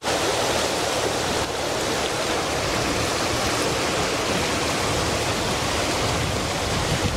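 Shallow river water rushing over a stony bed in fast riffles: a steady, even rushing.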